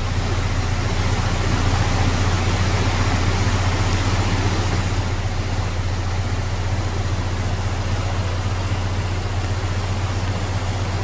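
Rushing floodwater of a wadi in flash flood, a steady loud wash of churning water, over a constant low hum.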